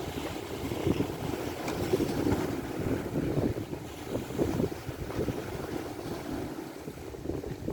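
Strong wind buffeting the microphone in uneven gusts, a low rumbling noise.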